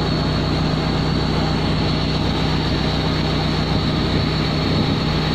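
Motor of a wooden backwater passenger boat running steadily while the boat cruises, a constant low engine drone with no change in speed.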